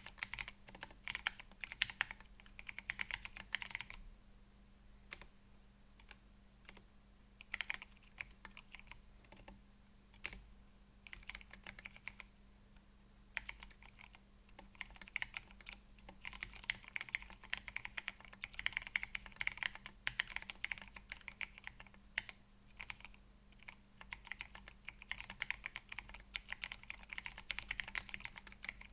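Typing on an ergonomic mechanical keyboard with Gateron Brown tactile switches and PBT keycaps, set on a deskmat: runs of quick keystrokes broken by short pauses, with only scattered keypresses for a few seconds around the middle.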